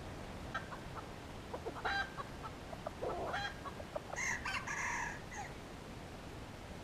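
Red junglefowl rooster clucking in a string of short calls, then a short crow of about a second, about four seconds in.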